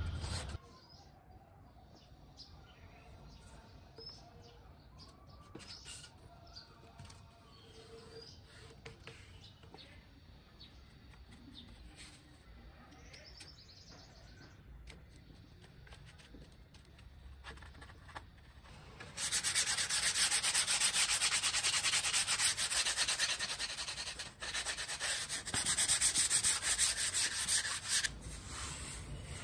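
Sandpaper rubbing fast back and forth along the edge of a thermocol (expanded polystyrene foam) wing, rounding it off. The rasping starts about two-thirds of the way in and breaks off briefly midway. Before that there is only faint handling and light scraping of a wooden stick on the foam.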